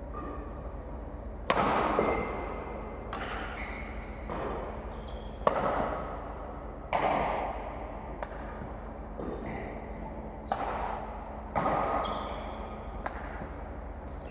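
About ten sharp knocks at irregular intervals, each with a short ringing tail, over a low steady hum.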